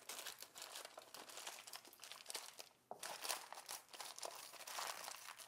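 Aluminium foil crinkling as the ends of a foil-wrapped corn cob are folded and pressed in by hand, with a brief pause just under three seconds in.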